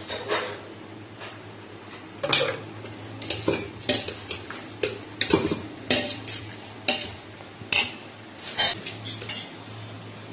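Metal spoon stirring a dry puffed-rice bhel mix in a stainless steel pot, clinking and scraping against the pot's sides in a quick, irregular run of sharp clinks, thickest after about two seconds.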